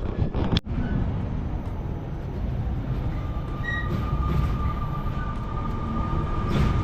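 Train crossing a steel railway bridge: a steady low rumble, with a thin high-pitched whine from the wheels joining about halfway through.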